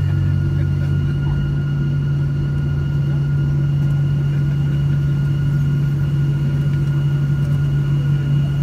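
Boeing 737 jet engines idling as the airliner taxis in, heard inside the cabin: a steady low hum with a thin high whine over it. The deepest part of the hum drops away about a second in.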